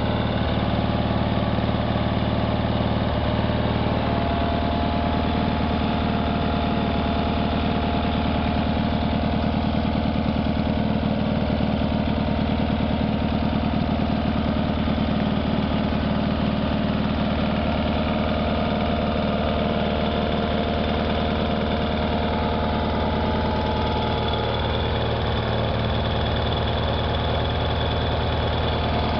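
Cub Cadet 782 garden tractor's Kohler twin-cylinder engine running steadily.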